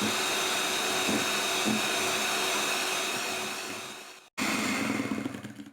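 Electric hand mixer running steadily at speed with a high whine, beating eggs and sugar for a sponge cake batter. It cuts out for a split second about four seconds in, then runs again and stops near the end.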